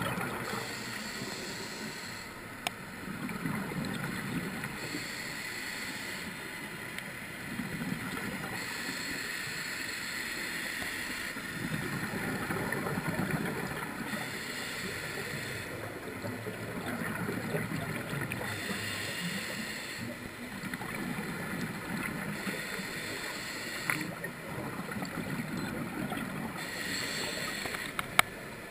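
A scuba diver's regulator breathing underwater: a hissing inhale alternating with the low bubbling of exhaled air, about one breath every four to five seconds, with a few sharp clicks.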